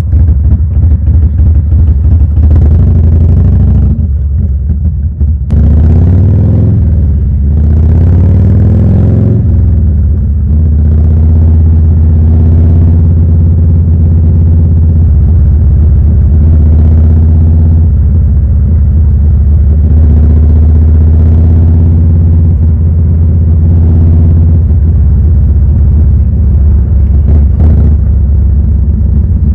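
Harley-Davidson Evolution 1340 air-cooled 45-degree V-twin running under way with a steady low rumble. Its pitch dips, climbs and falls again between about six and ten seconds in as it accelerates and shifts.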